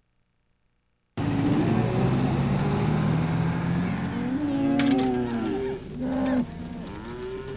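Cattle mooing, several cows calling over one another, starting suddenly about a second in over a steady background noise.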